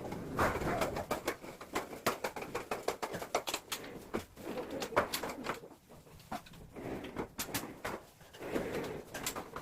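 Irregular sharp clicks and light taps, as of wooden louver shutter parts and frame fittings being handled and fitted, with a few low fuller swells of sound in between.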